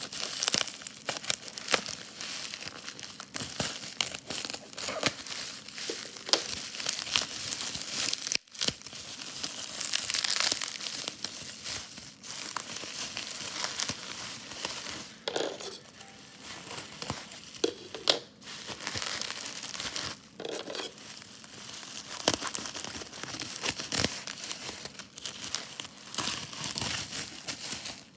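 Packaging crinkling and tearing as a vinyl LP album is unwrapped by hand: dense, irregular crackling with sharp clicks throughout.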